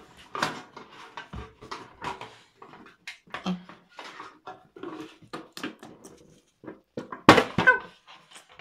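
A child making wordless mouth sound effects for toy figures: short grunts and munching noises, with the loudest cry about seven seconds in. Small plastic toy pieces click together in between.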